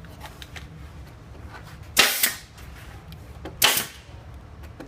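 Staple gun firing two staples, a sharp shot each, about a second and a half apart.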